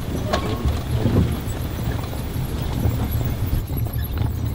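Side-by-side UTV driving over rough ground: a steady low engine rumble with scattered knocks and rattles from the vehicle body.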